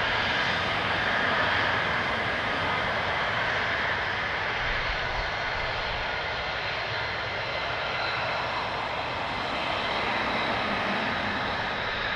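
Military fighter jet engines running at taxi power: a steady rush of jet noise with a faint high whine.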